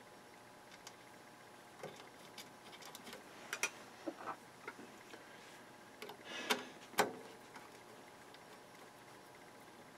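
Small scattered metal clicks and taps as a washer and nut are fitted onto a voltage regulator's mounting screw and a nut driver is set on the nut. The sharpest clicks come about six and a half and seven seconds in.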